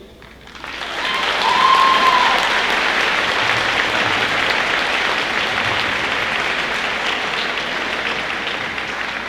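Audience applauding, starting about half a second in, swelling quickly and then slowly tapering off. A single brief rising-and-falling call sounds above the clapping near the start.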